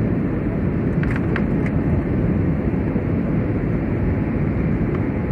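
Steady roar of a jet airliner's engines and rushing air, heard from inside the passenger cabin in flight.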